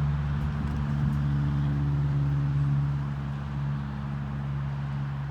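Steady, unchanging motor hum with a low even pitch, like an engine idling.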